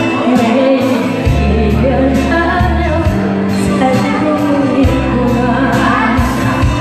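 Live song with a backing track: a singer's voice over a steady drum beat and bass.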